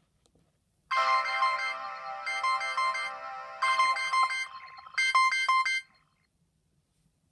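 Sony Ericsson W395 mobile phone playing one of its built-in ringtones through its small loudspeaker: a short synthesized melody in four phrases, starting about a second in and stopping after about five seconds.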